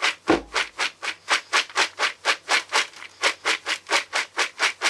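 Popped popcorn being shaken and tossed around a bowl to coat it with oil, a rhythmic swishing about four times a second.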